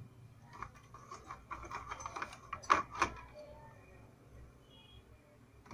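Hands handling a circuit board and wire: faint rustling and small clicks, with two sharper clicks about three seconds in, over a low steady hum.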